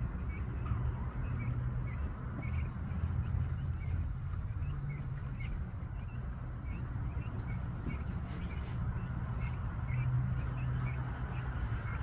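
Young Silkie chickens peeping: a run of short high peeps, roughly two a second, over a steady low rumble.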